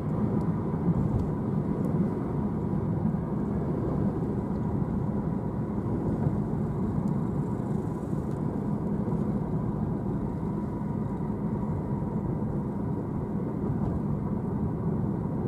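Car engine and cabin noise heard from inside the car, a steady low drone with a faint constant whine.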